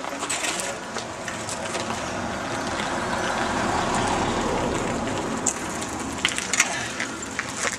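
Old bicycles' tyres crunching over gravel as riders roll up and past, the crunching building to a peak about halfway and easing off. A few sharp clicks and rattles come near the end as one bicycle passes close.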